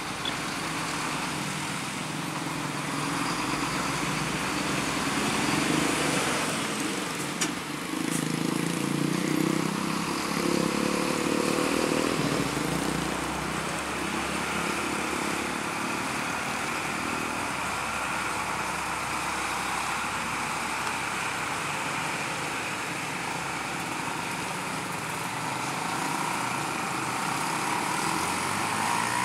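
Heavy diesel trucks running slowly over a railway level crossing one after another, engines pulling under load with passing traffic around them; the engine sound swells for several seconds about six seconds in, and one sharp click comes a little after seven seconds in.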